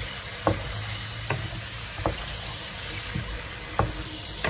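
Small new potatoes sizzling and bubbling in a frying pan as the water in it boils off, stirred with a wooden spatula that taps and scrapes against the pan about six times.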